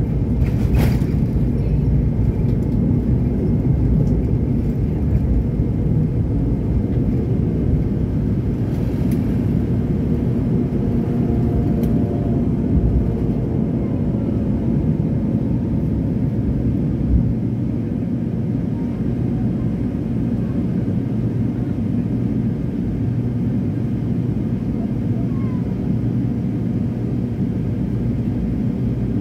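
Cabin noise of an MD-80 airliner on its takeoff run and initial climb: the rear-mounted Pratt & Whitney JT8D turbofans at takeoff power, heard as a steady deep rumble that eases a little about halfway through. A single sharp click sounds about a second in.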